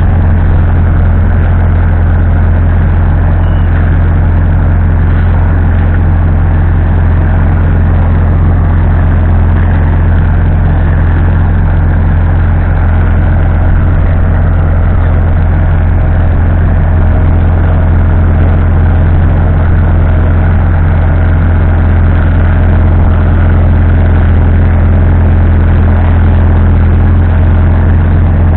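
McCormick T3 F90 tractor's diesel engine running steadily under load while it drags a leveling pipe over ploughed ground, a constant low hum with no change in speed.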